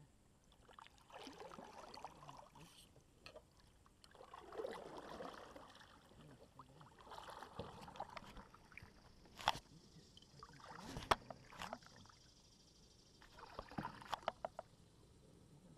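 Kayak paddle strokes: the blades dip and pull through calm water with a soft swish about every three seconds. A few sharp clicks or knocks come in between, the two loudest about halfway through.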